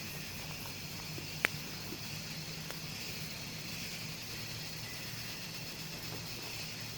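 Steady forest ambience: a continuous high insect hum over a low drone, with one sharp click about one and a half seconds in.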